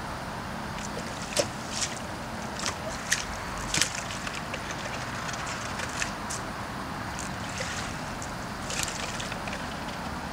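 River water lapping and sloshing against a small craft, with irregular small splashes over a steady rush.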